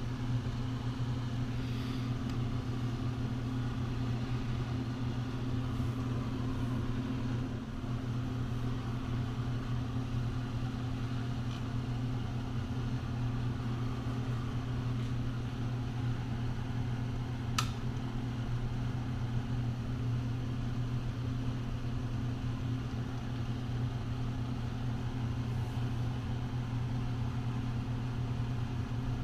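Steady low motor hum of shop background, unchanging throughout, with one sharp click about two-thirds of the way in.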